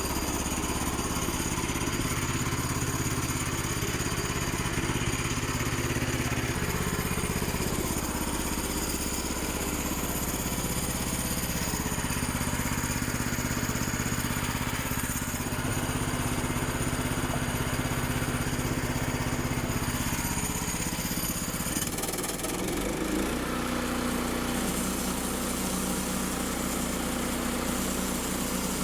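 Woodland Mills portable band sawmill running, its gasoline engine held at a steady speed through a cut. About 22 seconds in the engine note changes abruptly and settles at a new steady pitch.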